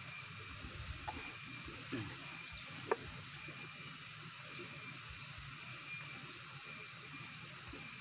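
Faint steady high hum over low rustling, with a few sharp clicks about one, two and three seconds in, the last the loudest, from a small box being handled.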